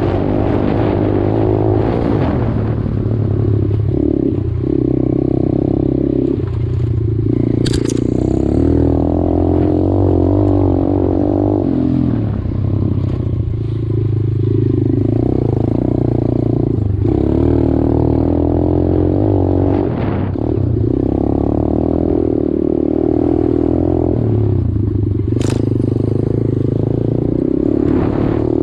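125cc dirt bike engine running under way, its pitch rising and falling as the throttle is opened and eased off every few seconds. A sharp click sounds about eight seconds in, and another near the end.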